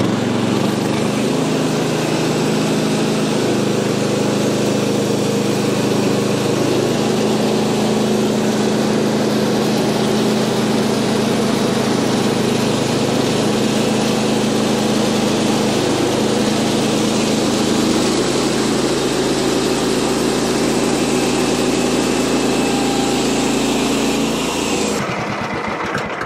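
Gas engine of a Woodland Mills portable bandsaw sawmill running steadily under load as the blade saws through a cedar log, its pitch shifting slightly now and then. Near the end the engine throttles down.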